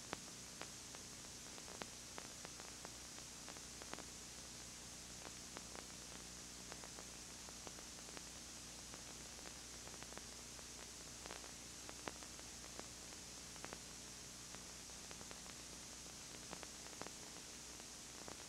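Steady tape hiss and low electrical hum with scattered faint clicks: the blank audio track of a VHS copy of surveillance-camera footage.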